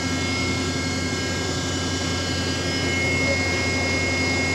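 Ship's deck crane running steadily as its boom is raised slowly: a steady machine hum with a high whine that grows stronger about three seconds in.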